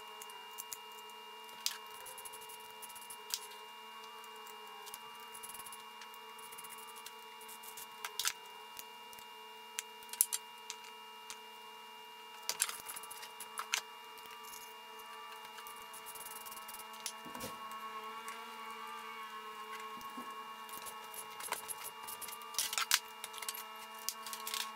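Irregular clicks and knocks of the cast-iron parts of a freshly painted Craftsman bench vise being handled and fitted together, with a cluster of knocks near the end, over a steady hum.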